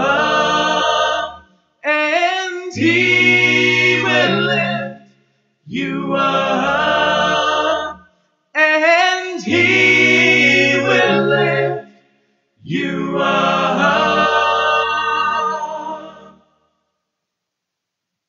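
Four-man a cappella vocal group singing in close harmony, in short phrases with breaths between them. The last held chord fades out about three-quarters of the way through, and silence follows.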